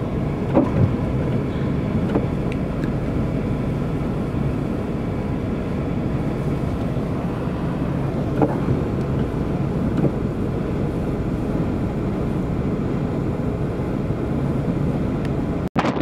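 Strong blizzard wind blowing steadily, a dense low rumble of wind noise with a few faint ticks of snow.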